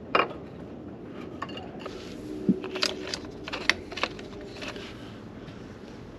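Scattered metallic clinks, taps and scrapes of hand tools and parts being handled while a new water pump is fitted back onto the engine.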